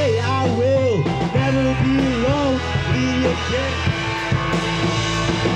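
Rock band playing live on electric guitars, electric bass and drum kit in an instrumental gap between sung lines. A melody slides up and down in pitch over the band throughout.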